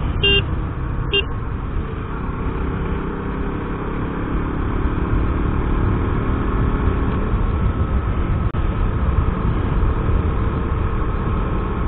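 Motorcycle engine running steadily as the bike cruises along, with a constant rush of road noise, as picked up by a helmet-mounted camera. Two short high beeps sound within the first second and a half.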